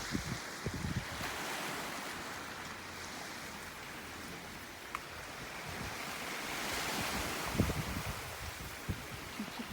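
Black Sea waves washing steadily, swelling for a few seconds past the middle, with wind buffeting the microphone in short low gusts just after the start and again near the end.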